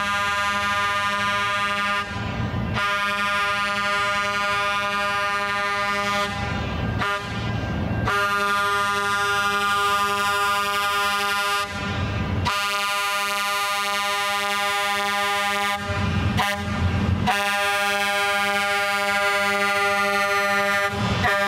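Train air horn blowing a run of long blasts with brief breaks between them, including one short blast about three-quarters of the way through.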